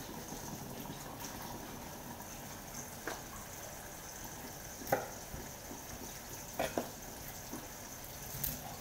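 Kitchen tap running steadily into a sink basin, with a few sharp knocks of a knife cutting watercress stems on a wooden chopping board.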